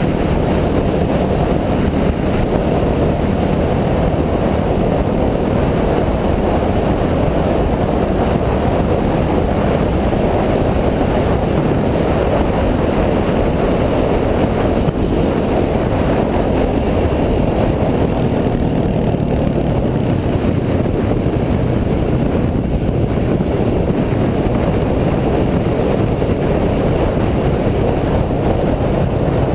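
Dirt bike engine running steadily, mixed with a dense, even rushing noise, with no marked revs or stops.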